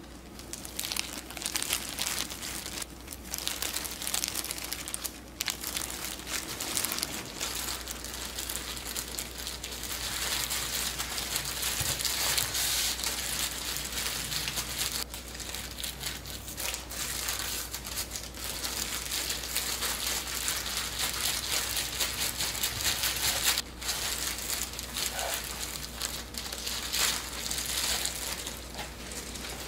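Crinkling and rustling from hands working kimbap, dense and continuous through the middle, with scattered light clicks over a steady low hum.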